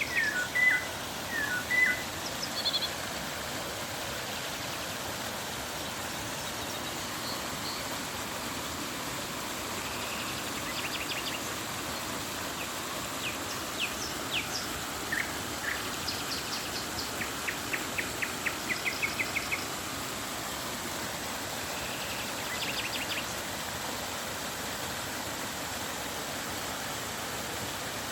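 Birds calling over the steady rush of flowing river water, with several quick runs of rapid chirps, the loudest near the start.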